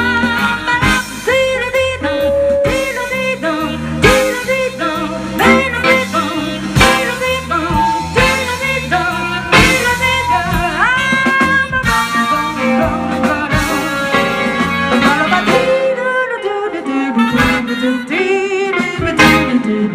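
Live jazz band playing a swing tune: a lead melody line over a walking bass and drums. The bass drops out for a few seconds about three quarters of the way through.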